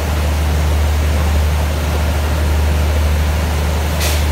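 Steady low engine hum of a diesel-hauled passenger train standing at the platform, under an even hiss, with a brief sharper hiss about four seconds in.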